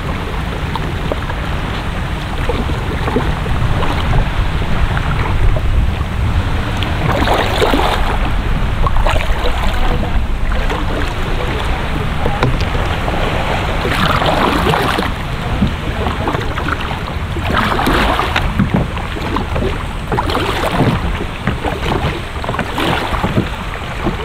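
Kayak paddle strokes splashing in the water, one every second or two, over a steady wind rumble on the microphone.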